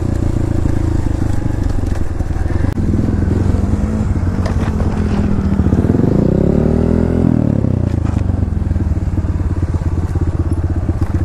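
Dirt bike engine running as the bike rides along, revving up and dropping back about halfway through.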